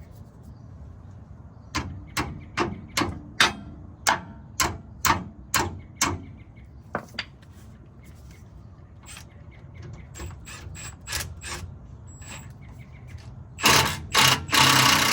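Hand tools working on sway bar link hardware: a run of about eleven sharp metallic clicks, about two a second, then fainter scattered clicks. Near the end a loud, fast rattling burst from a power tool starts.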